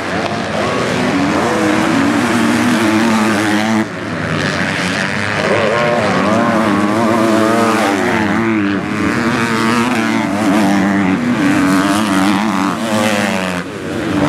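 Several MX2 motocross bikes' engines revving hard, their pitch rising and falling as the riders accelerate up and over a jump. The sound changes abruptly about four seconds in and again near the end.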